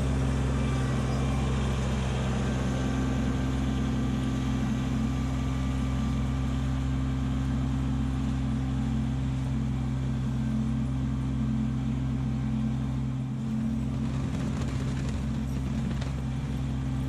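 Kubota LX2610 compact tractor's diesel engine running steadily while clearing snow with its snowblower, a constant low hum.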